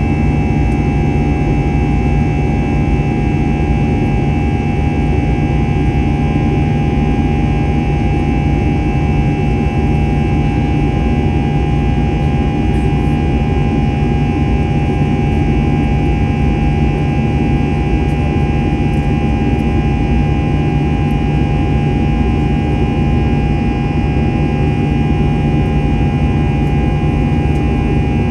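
Airbus A321 jet engines heard from inside the cabin in flight: a loud, steady roar of engine and air noise with a few steady humming and whining tones, unchanging throughout.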